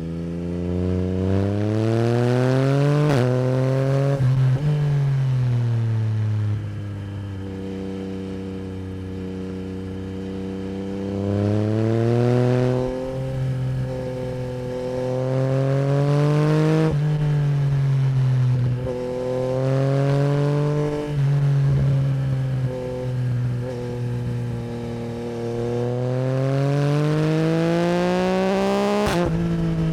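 A 2024 Yamaha MT-09 SP's 890 cc CP3 crossplane inline-three engine through an Akrapovic Racing Line exhaust, ridden hard. The revs climb repeatedly with quick upshifts that break the rising note, then the engine eases off on a steady lower note before pulling hard again.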